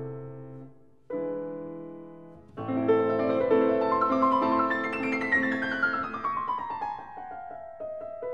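Background piano music: a held chord fades out, a second chord rings and fades, then a flowing passage with a long falling run of notes.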